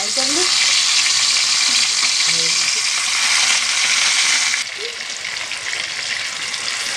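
Rohu fish pieces deep-frying in hot oil in a kadai, a dense steady sizzle as more pieces are laid into the oil. The sizzle drops somewhat in level about two-thirds of the way through.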